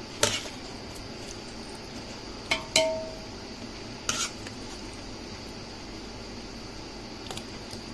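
Kitchen utensils clinking against cookware, about four knocks in the first half, the third ringing briefly, over a steady low hiss.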